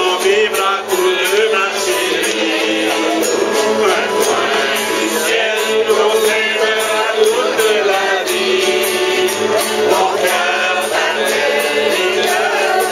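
A group of amateur voices singing together, accompanied by several strummed acoustic guitars.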